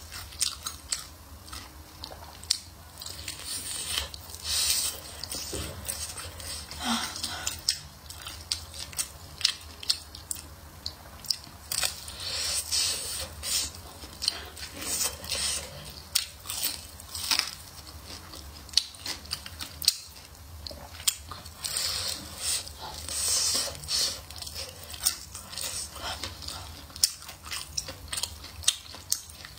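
Close-up eating sounds of a person biting into and chewing a crispy batter-fried chicken leg: many short, irregular crunches and chewing clicks.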